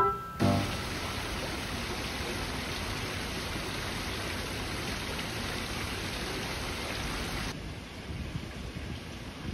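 Water spilling from wall-mounted water features into a swimming pool: a steady splashing rush. It cuts off suddenly about three-quarters of the way in, leaving a quieter outdoor background.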